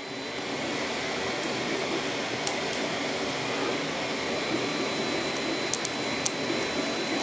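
Steady whir of fans and motors, with a thin high-pitched tone and a few faint ticks.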